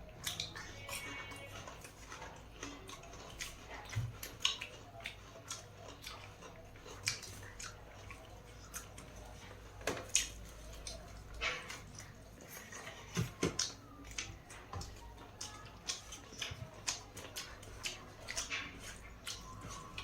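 Mealtime eating sounds: chewing and dishes, heard as scattered irregular clicks, taps and smacks over a faint steady low hum.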